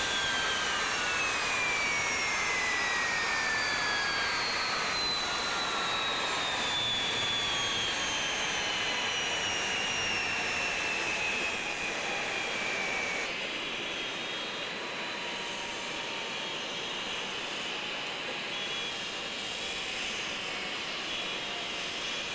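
Boeing 737 jet engines spooling down after shutdown: several whines falling slowly in pitch over about thirteen seconds over a steady rushing hiss, then a steady high whine and hiss carry on.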